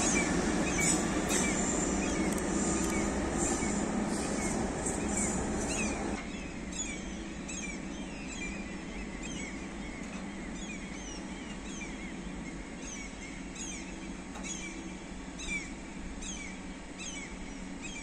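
SJ X2000 train rolling past at low speed on the track, rumbling with clicking wheels over the rail joints, until the noise drops off sharply about six seconds in. After that birds keep chirping, with many short falling calls one or two a second.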